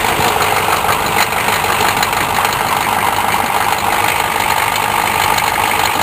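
Chevrolet Blazer's diesel engine idling steadily just after a cold start.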